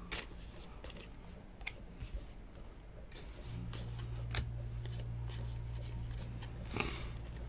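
Stack of 2019 Legacy football trading cards being flipped and slid one behind another in the hands, with soft flicks and light clicks of the card stock. A steady low hum comes in about three and a half seconds in.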